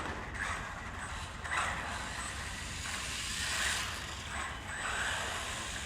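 Small electric RC cars driving on a hard floor: motor whine and tyre noise that swell and fade as the cars pass, a few times.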